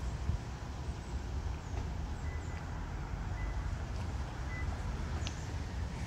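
Steady low outdoor rumble, with a few short, faint high chirps scattered through it.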